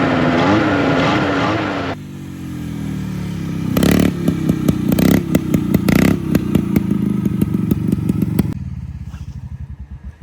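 Vintage snowmobile engines running, the pitch wavering. After an abrupt change about two seconds in, a sled's engine comes up louder with rapid popping from the exhaust. About eight seconds in it drops off suddenly, leaving a fainter engine puttering.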